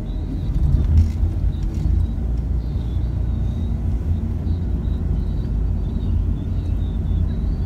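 Steady low rumble of a car driving along a road, heard from inside the car.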